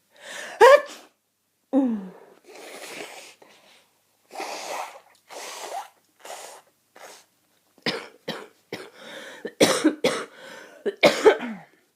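A person with a head cold coughing repeatedly: sharp coughs in the first two seconds, noisy breaths in between, then a quick run of coughs with the strongest near the end.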